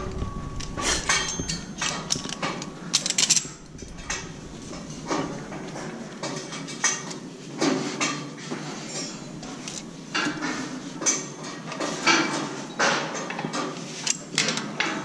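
Steel scaffold tubes and fittings clinking and clanking as they are handled, a string of irregular sharp metallic knocks.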